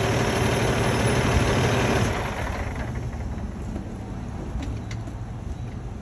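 Box truck engine idling with a steady low hum. The sound drops noticeably about two seconds in and carries on more quietly.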